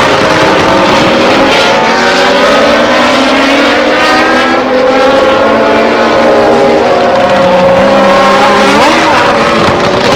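Several racing car engines running at high revs at once, their pitches rising and falling as cars speed past.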